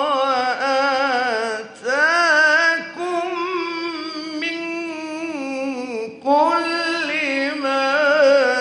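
A man reciting the Quran in the melodic mujawwad style: long, ornamented, wavering phrases drawn out on held vowels. Short breath pauses fall about two, three and six seconds in.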